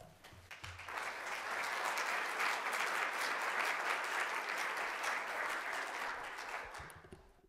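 Audience applauding a lecturer's introduction. The clapping builds over the first second, holds steady and fades out near the end.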